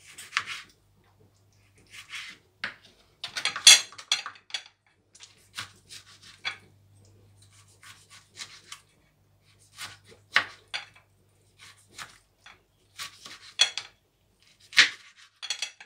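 Kitchen knife dicing a tomato on a plastic cutting board: irregular clusters of sharp taps and scrapes as the blade hits the board. The knife is less sharp than the cook thought.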